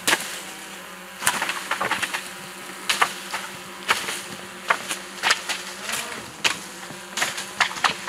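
A long wooden pole beating the branches of a chestnut tree to knock down the burrs: about a dozen irregular sharp knocks with leafy rustling between them, over a steady low buzz.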